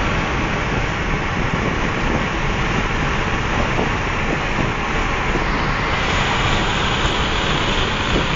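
Steady rush of tyre and wind noise inside the cabin of a car moving at speed, with no engine note standing out. The hiss in the upper range grows a little louder about six seconds in.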